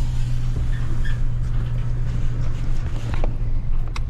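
Vehicle engine running, heard from inside the cab as a steady low hum, with a few faint clicks near the end.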